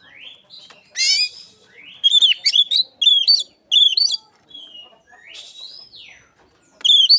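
Oriental magpie-robin singing, mimicking Asian pied starling phrases: rising whistles, a harsh rasping call about a second in, then a quick run of repeated looping notes that starts again near the end.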